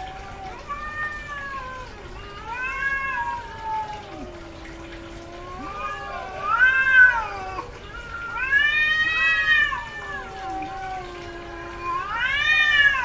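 Female cat in heat yowling: a run of about five long, drawn-out meows that rise and fall in pitch. The calls grow louder in the second half, and the loudest come just past the middle and near the end. The heavy calling is typical of a cat in heat.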